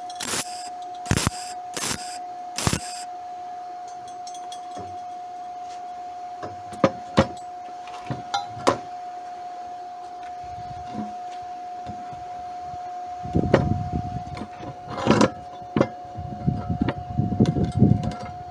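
MIG welder striking short tack welds on aluminum with its standard wire and gas rather than argon: four brief crackling arc bursts in the first three seconds, over a steady faint whine. Then scattered clicks, and low rumbling bursts near the end.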